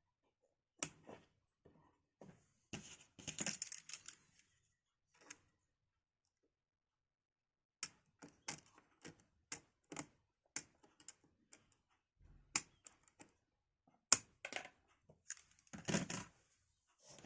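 Computer parts being handled during a PC build: scattered sharp clicks and taps, coming about twice a second for a few seconds past the middle, with short rustling about three seconds in and again near the end.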